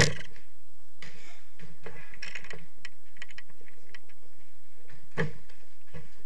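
Jorkyball ball hitting the court's walls and players' feet in the enclosed court: a loud hit at the very start, another about five seconds in, and lighter knocks and taps between.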